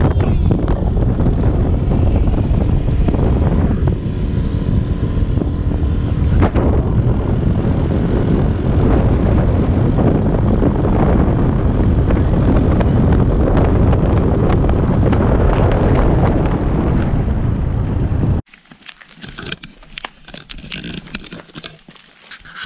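Wind rushing over an action camera's microphone on a moving scooter, with the scooter's engine running beneath it. It cuts off suddenly about eighteen seconds in, giving way to quieter outdoor sound with light footsteps on a concrete path.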